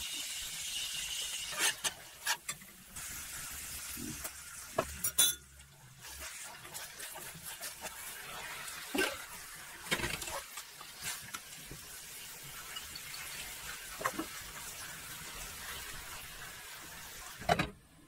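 Pan of sauce and vegetables sizzling and simmering on the stove while it is stirred, first with a ladle and then with chopsticks, with scattered clinks of the utensils against the pan. A lid clanks down onto the pan near the end.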